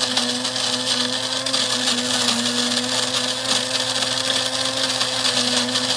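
Cuisinart DBM-8P1 electric burr coffee grinder running steadily, grinding coffee beans on its fine setting: a constant motor hum under a gritty hiss.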